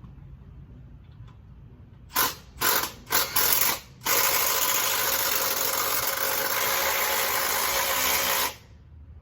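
Power drill driving a screw: three short bursts, then a steady run of about four seconds that stops suddenly, the bit stripping the screw head.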